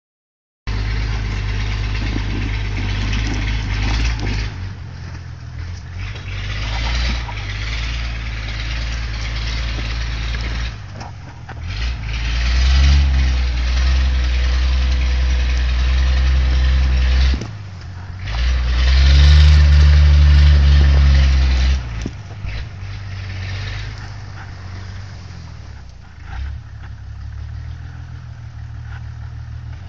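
Engine of an old GMC CCKW 6x6 army truck with chained tyres, working under load through snow. It runs steadily, then revs up hard about twelve seconds in, dips briefly, and revs up hard again before easing back to a lower, quieter pull near the end.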